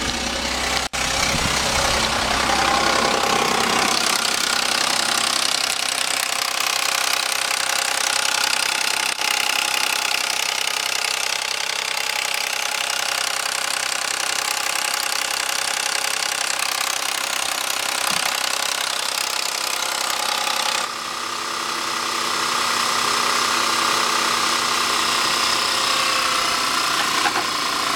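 Audi A6 3.2 FSI V6 (engine code AUK) running just after a cold start with a rattling, nailing noise from the engine, a fault whose cause the owner does not know. About 21 seconds in the sound changes suddenly and drops a little in level, leaving a smoother running engine.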